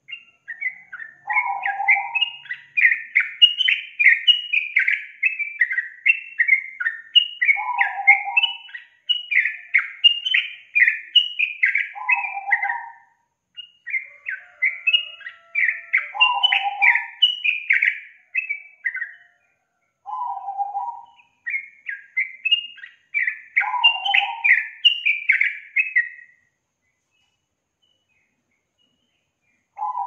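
Yellow-vented bulbul (trucukan) singing: bubbly runs of quick chattering notes, with a lower note every few seconds. It sings in several bouts with short pauses and falls quiet for the last few seconds.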